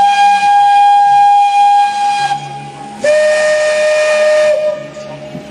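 Steam locomotive whistle sounding two long blasts. The first lasts about two and a half seconds; after a short pause, the second lasts about a second and a half and is lower in pitch.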